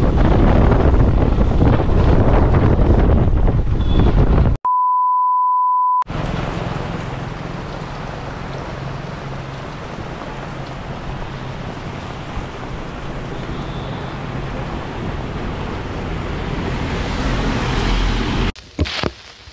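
Motorcycle riding on a dirt track, wind buffeting a helmet-mounted microphone over the low engine note. About four and a half seconds in, a steady beep tone sounds for about a second and a half. Then steady hiss of heavy rain on a road with traffic passing, which cuts off near the end.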